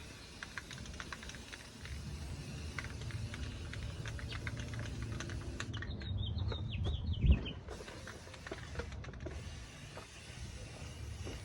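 Irregular light clicks and taps over a low hum, with a wavering high whine for about a second and a half and one loud thump about seven seconds in.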